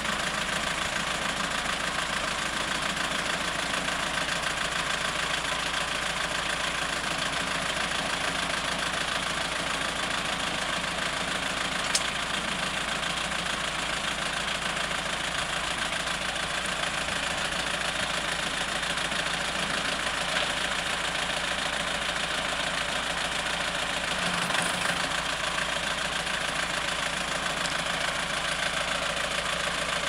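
Compact tractor engine running steadily while its PTO drives the hydraulic pump that works a three-point-hitch backhoe digging soil. A single sharp click about twelve seconds in.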